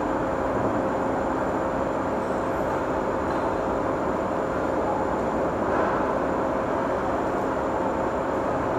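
Steady din of machinery running in a large machine-shop hall, with one constant hum over an even mechanical rumble.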